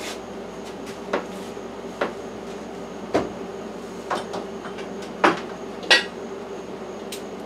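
A series of about six sharp knocks and clanks of hard objects, irregularly spaced, the loudest two a little past halfway, the second ringing briefly like metal, over a steady hum.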